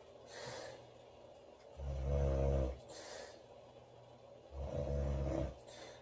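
A woman snoring loudly, two long rattling snores on the in-breath about two and a half seconds apart, each followed by a softer breathy exhale.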